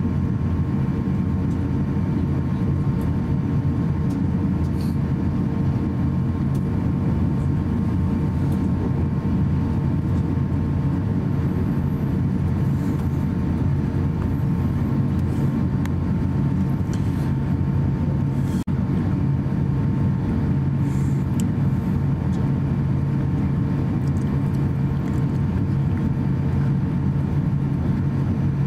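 Steady cabin hum inside an Airbus A350-900 moving on the ground: a low rumble from the engines and air-conditioning with a few steady tones over it. There is a split-second drop-out about two-thirds of the way through.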